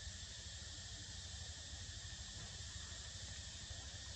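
Faint, steady high-pitched drone of insects, with a low rumble underneath.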